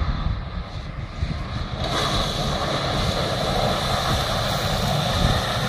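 Nissan Patrol 4x4 engine pulling under load through deep mud, with the splash and spray of mud and water thrown by the tyres. The noise thickens about two seconds in as the truck ploughs into the wettest part of the rut.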